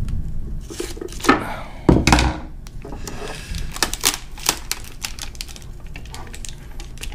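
Two scissor snips through aluminium foil tape, then a quick run of sharp crackly clicks as the cut foil strip and its paper backing are handled and peeled.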